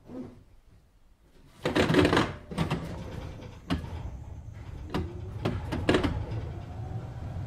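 Düwag GT6Z tram's doors closing at a stop, heard from inside: a sudden rush of air followed by a series of sharp clunks, then the tram starts to move off, its running noise and a faint motor whine rising near the end.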